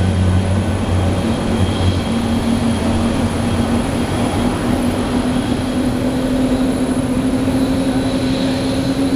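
Diesel engines of airport apron buses running as the buses pull away, a low engine drone rising slowly in pitch, over steady loud machinery noise.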